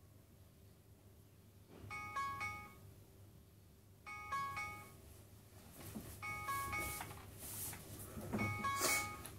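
Smartphone alarm ringing: a short chiming melody of a few notes, repeated four times about two seconds apart, starting about two seconds in. Rustling of bedding joins in the second half.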